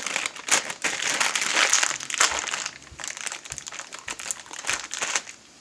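Plastic packaging crinkling and rustling as it is handled, loudest in the first half and fainter and more scattered after.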